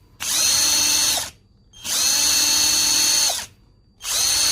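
Cordless drill run free on its high-speed setting, no load, in three short bursts. Each time the motor spins up, runs steadily for a second or so, then winds down. The third burst starts about four seconds in and is still running at the end.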